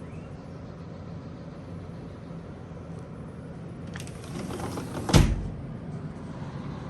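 2019 LG Dual Inverter 9,500 BTU window air conditioner running with a steady hum. About four seconds in, a rush of noise builds and ends in a single loud thump, then the hum carries on alone.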